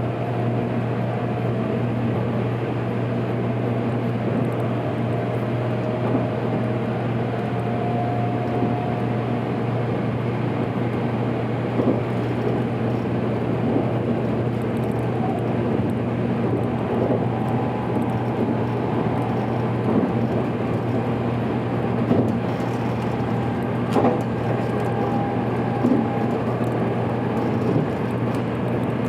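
JR Kyushu 783 series electric limited express running steadily between stations, heard from inside the front car: a constant low running hum with a faint, slowly drifting whine, and a few short sharp clicks in the second half.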